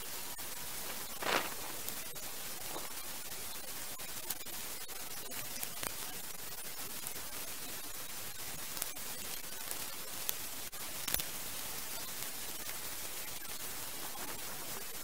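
Shallow stream water running over stones close by, a steady even hiss. A brief louder burst comes about a second in, with a few faint clicks later.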